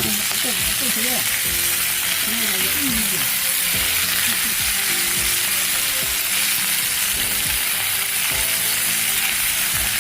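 Pork belly sizzling steadily as it fries, a dense crackling hiss of fat in the pan.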